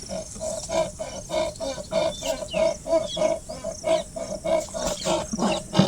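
Tata Nexon's suspension rattling and creaking in a quick, even rhythm, about four to five knocks a second, as the car body is rocked up and down by hand. It is a rattling noise that has come into the suspension early in the car's life, the fault the owner is showing.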